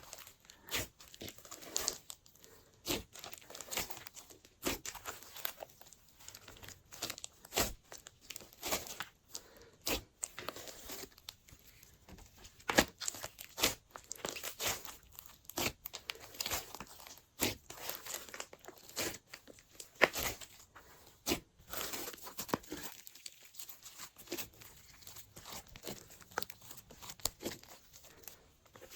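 Glossy slime being kneaded and squished by hand, with irregular sharp pops and crackles, several a second.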